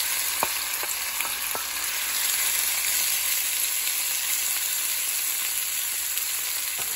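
Diced raw chicken breast sizzling as it fries in hot oil in a skillet, a steady hiss. In the first two seconds, four knocks come from the wooden spatula as the pieces are pushed in and stirred.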